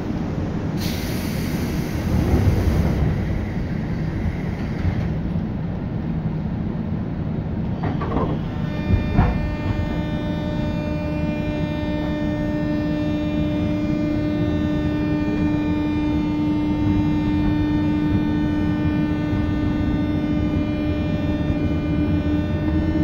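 A 201 series electric train running, heard from on board: wheel and track rumble with a hiss in the first few seconds, and two sharp knocks about eight and nine seconds in. After the knocks a steady pitched hum with overtones sets in and holds, typical of the train's thyristor chopper control under power.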